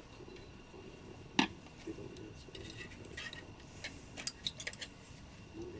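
Thin metal rods and small parts clinking and clicking together as they are handled and fitted, with one sharp click about a second and a half in and a quick run of lighter clicks later.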